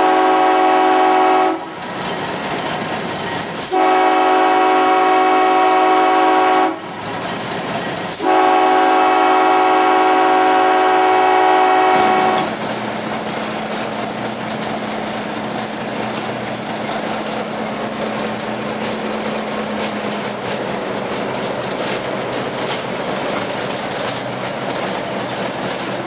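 Diesel locomotive's air horn sounding for a road grade crossing: a blast that ends about a second and a half in, then two long blasts, the last stopping about twelve seconds in. After that the locomotive runs on with a steady engine hum and rail noise, heard from the cab.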